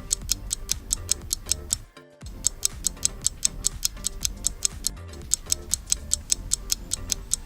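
Countdown timer sound effect: fast, even ticking at about four to five ticks a second over a background music track, dropping out briefly about two seconds in.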